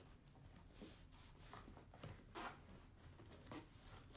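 Faint, intermittent scratching and rustling of hands working at a cardboard shoebox wrapped in packing tape, picking and pulling at the tape, as several short scrapes over a low steady hum.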